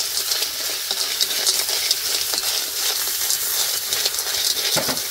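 Food frying in a hot pan, a loud steady sizzle with the scrape of stirring.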